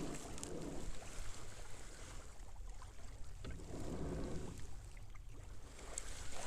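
Outdoor ambience in a fishing kayak on a lake: a low rumble of light wind on the microphone with faint water sound, and a few small clicks and knocks from the angler's gear or the kayak.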